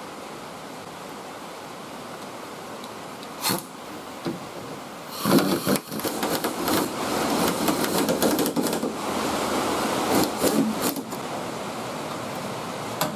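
A steady hiss, then from about five seconds in several seconds of clattering and rapid clicking from hand work on the car's hood and hinges, fading back to a steady hiss near the end.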